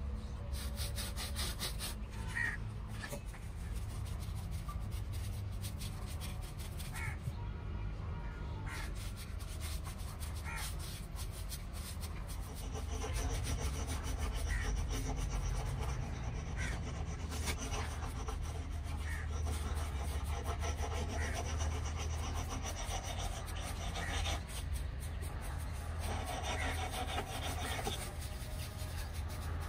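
Stiff paintbrush scrubbing paint onto a rough cast-cement planter: a continuous scratchy rubbing of bristles on cement, stroke after stroke. Short bird calls come every few seconds in the background.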